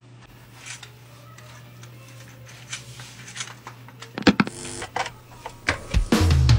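Studio equipment handling noises: a steady electrical hum with scattered sharp clicks, and a loud click and brief buzz about four seconds in as a patch cable is plugged into a rack unit. Near the end a low note comes in as the music starts.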